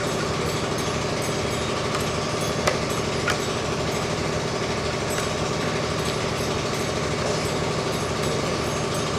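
Steady mechanical rumble with a fine rapid flutter, with two faint clicks a little over halfway through the first half.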